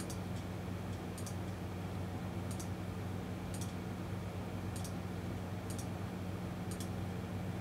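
Computer mouse clicking at a faint level, about once a second, as the photos in an online listing gallery are advanced one by one. A low steady electrical hum runs underneath.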